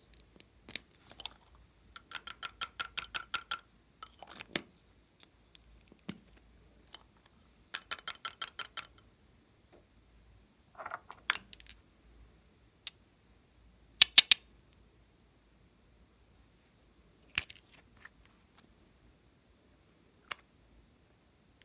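Small plastic clicks from handling cosmetic tubes and a nail polish bottle as their caps are twisted and opened. There are two short runs of rapid, even ticking and scattered single clicks between them.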